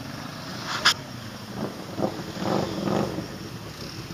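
ATV engine running as the quad wades through a deep mud hole, churning and splashing muddy water. A sharp thump about a second in, then uneven louder surges of engine and sloshing water between about one and a half and three seconds in.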